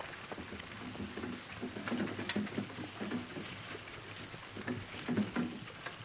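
Soft, irregular tapping and crackling close to the microphone: ASMR trigger sounds.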